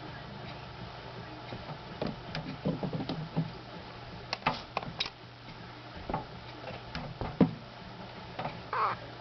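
Madagascar day gecko calling with irregular sharp clicks and short chirps, a quick run of them about two to three seconds in and a longer chirp near the end, over a low steady hum.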